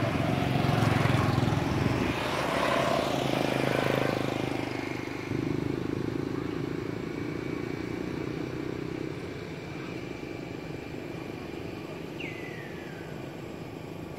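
A motor vehicle passing on the road, loudest in the first few seconds, then dropping off to a fainter steady rumble. Near the end a short high call slides down in pitch.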